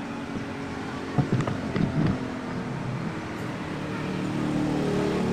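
A motor engine running with a steady hum of low tones that grows louder toward the end, with a few light knocks between one and two seconds in.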